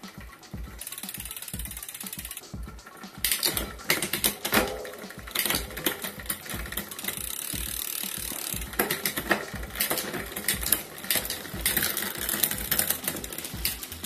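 Bicycle drivetrain turning on a repair stand: the rear wheel spins while the newly fitted chain runs over the cassette cogs and through the rear derailleur. It makes a fast, continuous mechanical clicking and ratcheting, with louder chain clatter a few seconds in and again near the middle.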